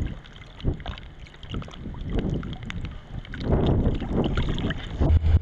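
Choppy water slapping and splashing around a camera held at the surface, with wind buffeting the microphone in irregular surges. Near the end it cuts to a steady low engine hum heard inside a car.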